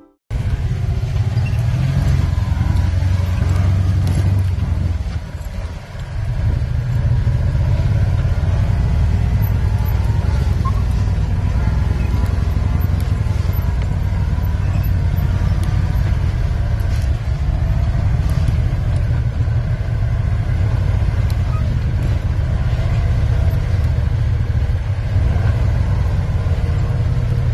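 Side-by-side UTV's engine and drivetrain running as it crawls over slickrock, heard from inside the cab as a steady low rumble that dips briefly about five seconds in.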